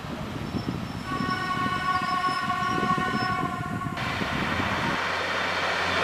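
ED72A electric multiple unit running into the station, sounding its horn in one steady single-tone blast of about three seconds that cuts off sharply, over the rumble of the approaching train. Near the end this gives way to a steady low engine hum.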